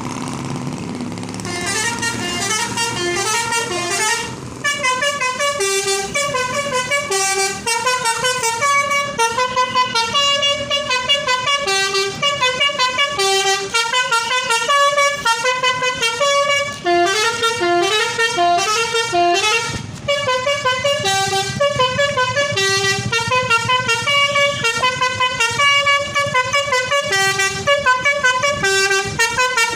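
Tour bus 'telolet' multi-tone horn playing a quick melody of changing notes, over and over, starting about a second and a half in. It breaks off briefly about four seconds in and again about twenty seconds in. A bus engine rumbles at the start, before the horn begins.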